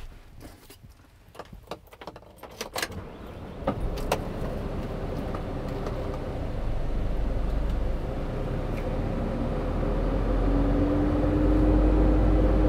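A few faint clicks and rattles, then about four seconds in the Hino 195 truck's diesel engine starts and runs steadily, getting a little louder toward the end.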